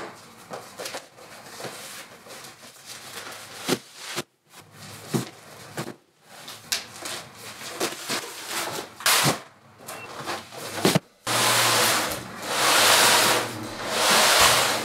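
Large cardboard boxes being handled, carried and set down: scattered knocks, thumps and scuffs of cardboard on a wooden floor. From about eleven seconds in, louder swells of rushing noise take over.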